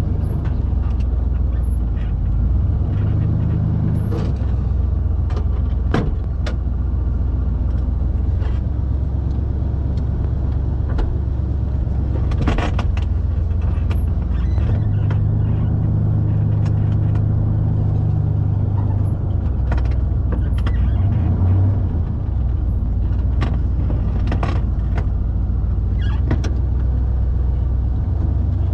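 1974 Chevrolet truck's gasoline engine on a Quadrajet carburetor, running steadily at low speed as the truck creeps forward, with the engine working a little harder for a few seconds around the middle. A few short knocks and clunks are scattered through it.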